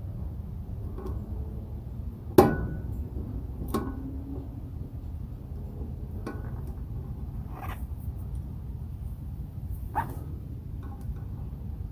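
Hand tools clanking against metal while working pliers on a combine's bearing, a few sharp knocks, the loudest about two and a half seconds in with a brief ring, then lighter taps.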